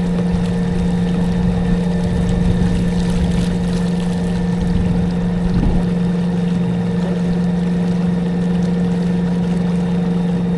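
Boat motor running at a constant speed: a steady, loud hum over a low rumble, without change.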